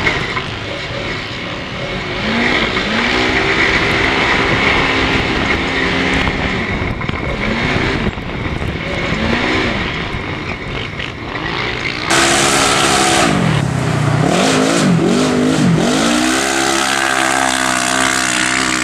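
Side-by-side UTV engine heard from on board while racing, revving up and easing off again and again with the throttle over a constant rush of noise. About two-thirds of the way through the sound changes abruptly to a louder, brighter engine that dips sharply in pitch a few times, then settles into a steady drone.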